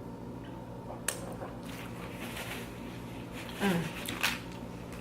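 Tortilla chips being bitten and chewed with crunching close to the microphone. A brief vocal sound falling in pitch comes about three and a half seconds in.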